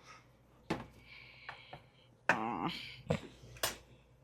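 Kitchen clatter: a handful of sharp knocks and clicks, with a short vocal sound a little past the middle.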